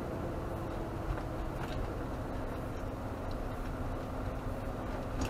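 Engine and road noise inside a slowly moving vehicle's cab: a steady low drone, with the engine note dropping slightly about two seconds in and a few faint clicks.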